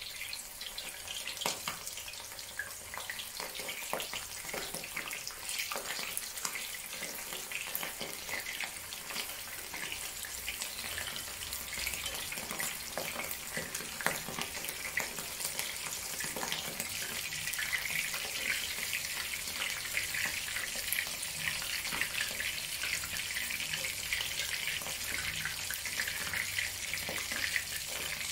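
Shell-on, cornstarch-coated shrimp deep-frying in oil at about 180 °C: a steady bubbling sizzle full of small pops and crackles, a little louder in the second half.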